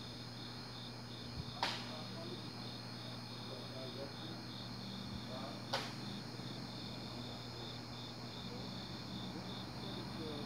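Cricket chirping steadily and faintly, about three chirps a second, over a low steady hum. Two sharp clicks come about a second and a half in and again near six seconds.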